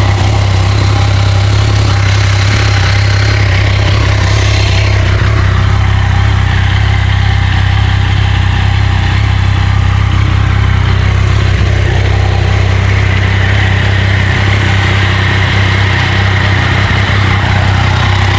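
Yamaha MT-09/FZ-09 inline three-cylinder engine idling steadily through its stock exhaust.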